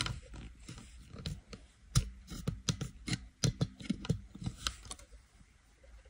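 A run of irregular small clicks and knocks, the loudest about two seconds in, dying away after about five seconds.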